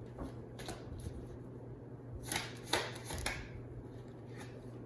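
Tarot cards being shuffled and handled, with a few short card slaps and rustles, over a faint steady low hum.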